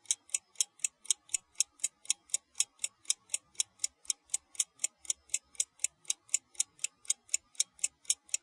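Steady, even ticking like a clock, nearly four crisp, high-pitched ticks a second, laid over the video as a sound effect.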